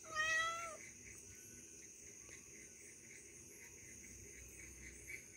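A cat gives one short meow that falls in pitch, then a steady faint high-pitched chirring of insects.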